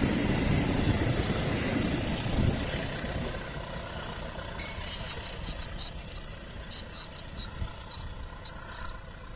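Passenger train coaches rolling past on the rails, a steady rumble that fades over the first few seconds as the tail of the train moves away. Quieter in the second half, with a few short high-pitched ticks.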